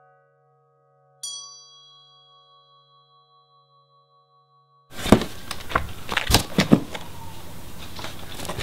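A single struck metal bell rings about a second in and fades slowly over a few seconds, its tone wavering slightly. About five seconds in it gives way to a steady rustle and sharp knocks as hands rummage through a cardboard box of canvas tote bags and booklets.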